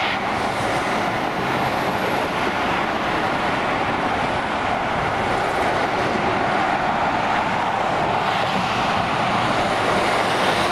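Road traffic noise from a convoy of heavy lorries approaching along a motorway: a steady rush of tyres and diesel engines, growing slightly louder near the end as they come closer.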